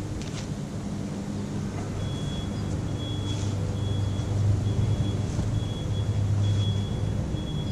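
Steady low engine-like hum of outdoor background noise, such as nearby traffic or an idling motor. From about two seconds in, a faint high chirp repeats about twice a second.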